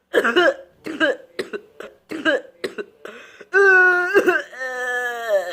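A person coughing hard and repeatedly in a fit, about eight short coughs in quick succession, then a drawn-out voiced groan in the last two seconds.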